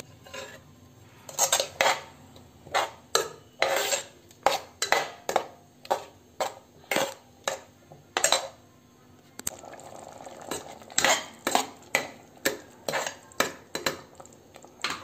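Metal spoon stirring a thick masala in a pressure cooker, clinking and scraping against the pot's sides and base, roughly two strokes a second.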